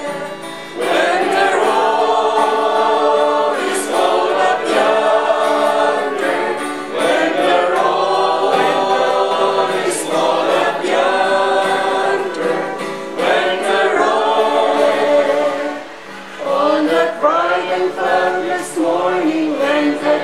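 A choir singing a gospel hymn in long held phrases, with short breaks between lines and a brief dip about sixteen seconds in.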